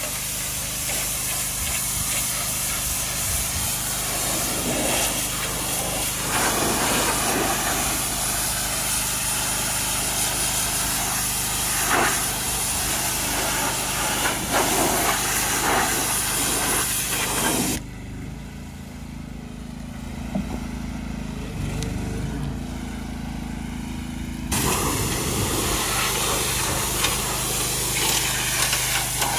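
Pressure washer spraying: a steady hissing jet over the even hum of its running motor. The spray stops for about six seconds past the middle while the motor keeps running, then starts again.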